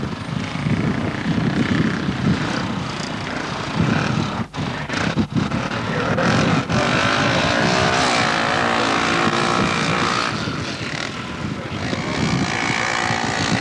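Speedway bike's single-cylinder methanol engine running rough, then revving with a rising, wavering pitch from about halfway through.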